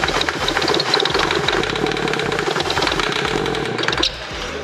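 BMW X3 20d's four-cylinder diesel engine, removed from the car and fed starting spray, firing and running, then cutting out suddenly about four seconds in. It starts readily, which shows the engine is still alive.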